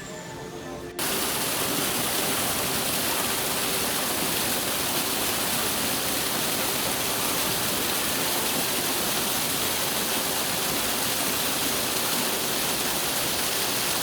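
A steady, loud hiss spread evenly over all pitches, setting in suddenly about a second in and holding unchanged.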